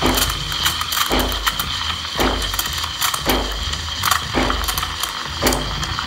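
Sage Bambino Plus steam wand steaming soy milk in a stainless jug: a steady hiss over a rattling, clicking machine sound, with a low rumble that cuts in and out and a sharper stroke about once a second.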